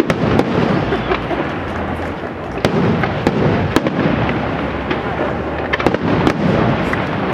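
Aerial firework shells bursting in quick succession during a big display: many sharp, irregularly spaced bangs over a continuous low rumble of further bursts and their echoes.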